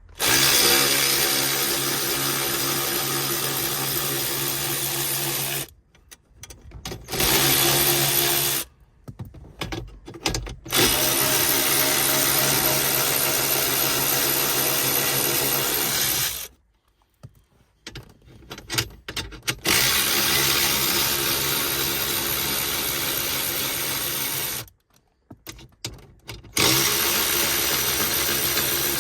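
Power drill running steadily as it undoes 10 mm bolts, in five runs of a few seconds each, with short clicks and rattles between them.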